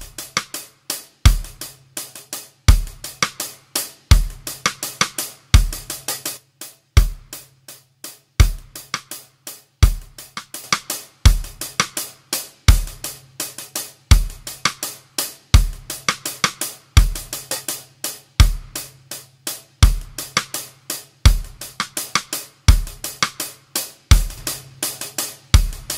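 Recorded drum kit playing a steady groove through the drum bus: a kick drum about every one and a half seconds under busy hi-hat and cymbal ticks, with snare hits. It is the demo of the Audified U73b tube vari-mu compressor plugin.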